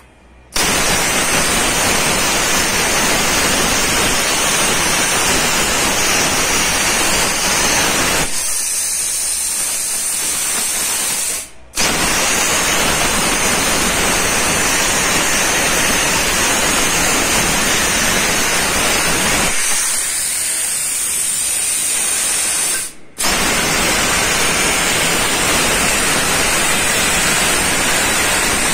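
Z410 CNC plasma cutter's torch cutting sheet steel: a loud, steady hiss of the plasma arc and cutting air. Twice, about eight and twenty seconds in, the hiss thins out for about three seconds, stops for a moment, then comes back at full strength.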